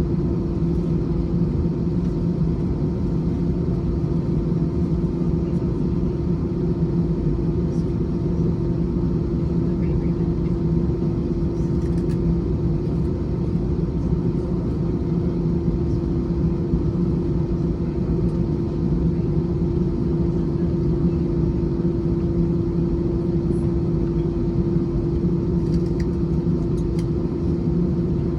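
Steady cabin rumble of an Airbus A321 on the ground, with its jet engines running at low power and a constant low hum underneath. The level and pitch stay even throughout, the sound of the airliner taxiing rather than taking off.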